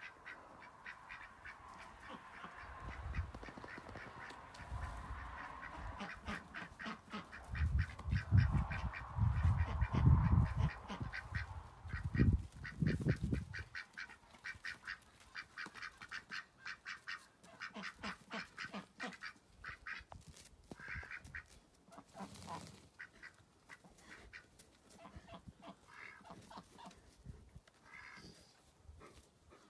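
Ducks quacking in quick repeated runs. Heavy low rumbles come and go from about three seconds in until about fourteen seconds in.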